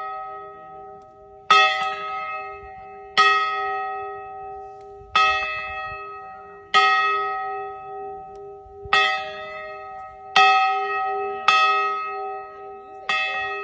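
A large victory bell struck about eight times at uneven intervals of one to two seconds, each stroke ringing on and overlapping the next.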